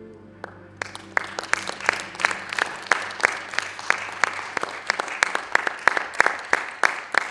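A small audience applauding, starting about a second in, with a few loud close claps standing out at a steady pace. A held musical tone dies away as the clapping begins.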